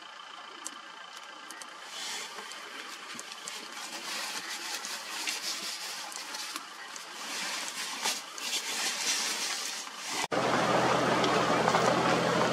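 A rustling hiss with scattered sharp ticks, then, about ten seconds in, a sudden switch to a safari vehicle's engine running loudly and steadily.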